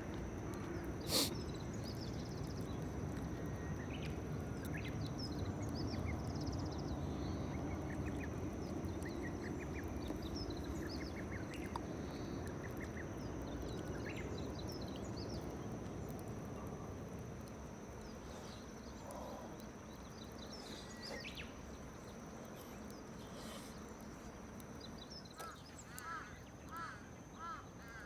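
Outdoor ambience over a steady low background noise, with scattered short bird chirps throughout and a quick series of repeated bird calls near the end.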